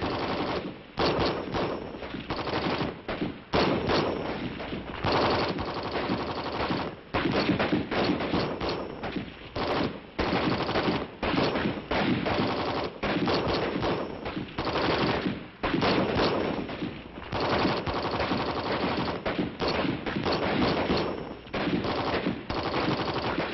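Continuous gunfire from several 7.62 mm M14 rifles, rapid shots and bursts overlapping, with brief lulls every few seconds.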